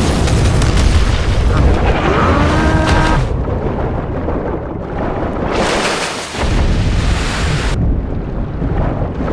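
Cartoon fight sound effects: explosions and a heavy low rumble, muffled in two stretches as if heard underwater.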